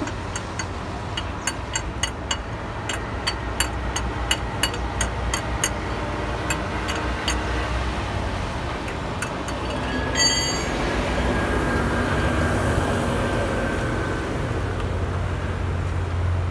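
A regular run of sharp metal clicks, a little over two a second, as a tool is worked under a truck during a flat-tyre change. About ten seconds in comes a single ringing metal clink. Steady traffic rumble runs underneath.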